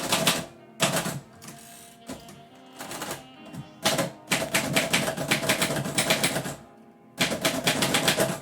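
Typewriter keys being struck in quick runs of clicks, five bursts of typing with short pauses between them, over quiet background music.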